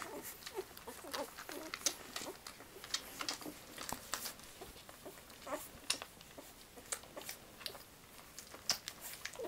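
Six-day-old English Springer Spaniel puppies making small squeaks and grunts, amid many quick irregular clicks.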